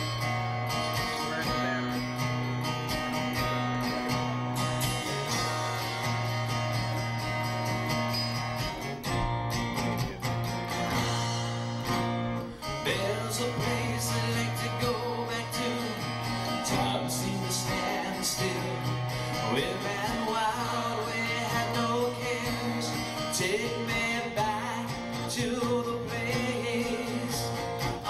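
Live acoustic rock song: acoustic guitar playing throughout, with a male lead vocal coming in partway through and singing the opening verse.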